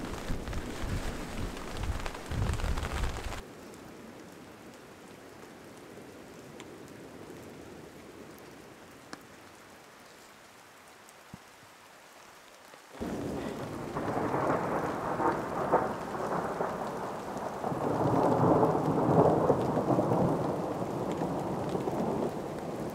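Wind buffeting the microphone at first; after a cut, a faint steady hiss of rain, then from about halfway in heavy rain pattering with thunder rumbling, loudest near the end.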